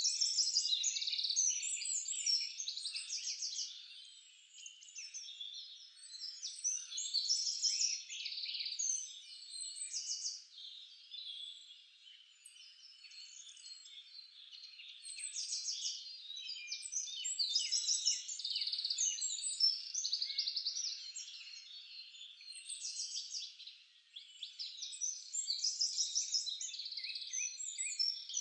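A dense chorus of many small songbirds chirping and trilling, high-pitched, swelling and fading every few seconds.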